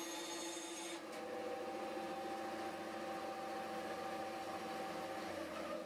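Bandsaw running and cutting a wooden axe-handle blank: a steady motor hum with a few held tones under the hiss of the blade in the wood, which grows fuller about a second in.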